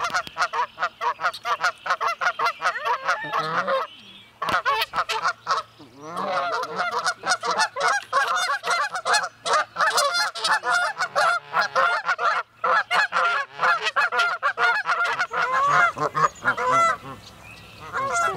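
A group of Canada geese honking rapidly and continuously, several overlapping calls a second, with a short lull about four seconds in and the calling easing off shortly before the end.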